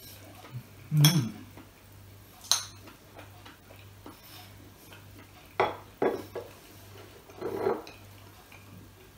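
Metal fork clinking and scraping against a small plate while eating: several separate sharp clinks, the loudest about a second in, a few more in quick succession around five to six and a half seconds in.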